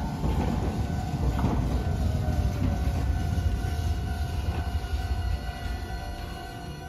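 Hiroden 3900-series articulated tram pulling in and braking to a stop: a low wheel-on-rail rumble, with a whine that slides down in pitch and then holds steady. There is a clank about a second and a half in, and the sound dies away near the end as the tram halts.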